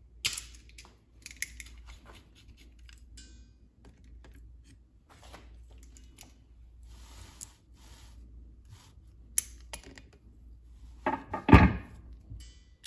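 Scattered clicks and metallic clinks of hand tools and steel parts handled on a workbench, as locking pliers are worked onto a differential's side pin to pull it. A louder knock and clatter comes near the end.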